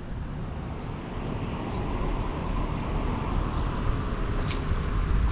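Car driving with wind rushing over the roof-mounted camera's microphone and a low road rumble, growing steadily louder as the car picks up speed. A short high click sounds near the end.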